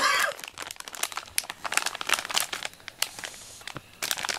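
Plastic snack bag crinkling as it is handled and turned over, in irregular rustles that ease off briefly about three seconds in.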